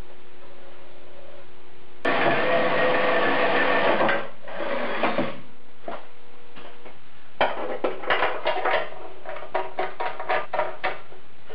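Electric drill cutting through the car's sheet-steel inner fender: one run of about two seconds, then a string of short, quick bursts.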